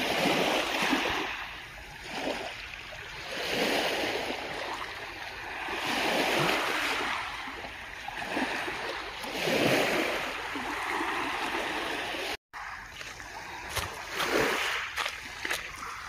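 Small sea waves washing onto a rocky, pebbly shore, each wash swelling and fading about every three seconds. After a brief cut near the end, the wash is lower and broken by small scattered knocks.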